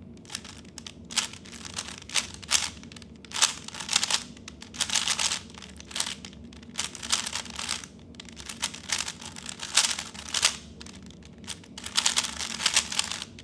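3x3 Rubik's speed cube being turned fast by hand: quick runs of plastic clicking and clacking as the layers turn, broken by short pauses.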